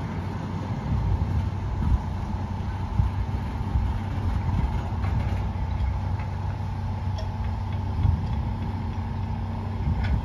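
Diesel engine of a slow-moving maintenance-of-way tie train running steadily with a low, even hum and rumble.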